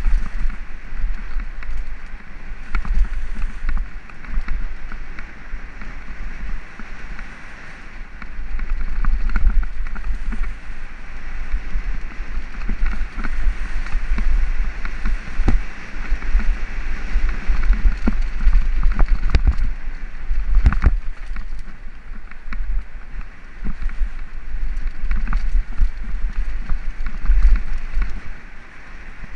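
Wind buffeting a bike-mounted camera's microphone as a mountain bike rolls fast down a dirt trail, with the hiss of tyres on dirt and scattered sharp clacks and rattles as the bike jolts over bumps, thickest past the halfway point.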